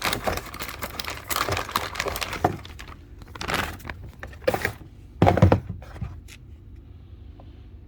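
Packaging rustling in irregular bursts, with a few sharp knocks, as a GHK Glock 17 airsoft pistol is unwrapped and handled; the loudest burst comes a little after five seconds, and the handling dies down about six seconds in.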